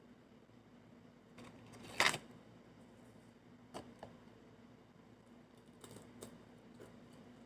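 Quiet eating and food-handling sounds: one short, loud noisy sound about two seconds in, then a few soft clicks.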